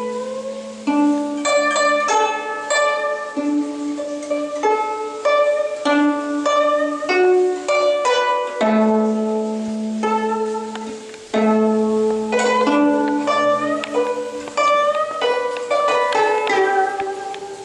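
Solo guzheng playing: plucked notes ringing out over recurring low notes, with some notes bent up or down in pitch.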